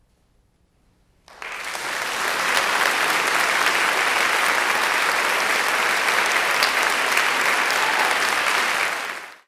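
Near silence, then audience applause starts suddenly about a second in, holds steady, and fades out quickly near the end.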